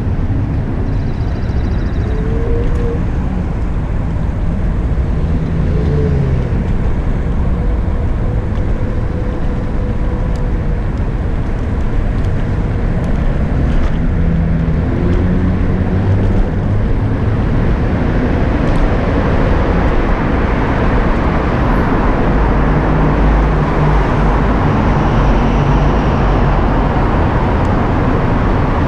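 Wind rushing over the microphone, with road and traffic noise, while riding an electric rental scooter; the rumble grows louder and brighter in the second half.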